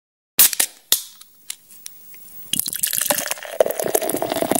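A few sharp splashy clicks, then from about two and a half seconds in a steady pour of beer into a glass.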